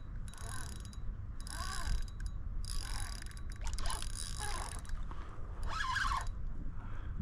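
Fishing reel whirring and ratcheting in four bursts while a hooked redfish fights on the line, the longest burst about three seconds in.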